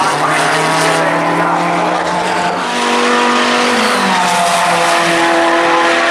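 GT3 race car engines running, several steady engine notes at once that step up and down in pitch a few times.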